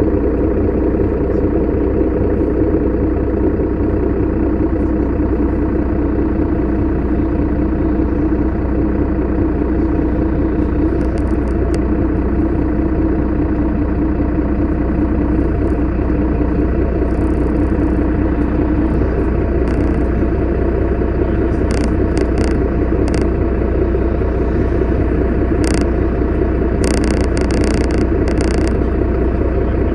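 Mercedes-Benz Citaro city bus engine idling while stopped, a steady low hum heard from inside the bus, with a few short, sharp high sounds near the end.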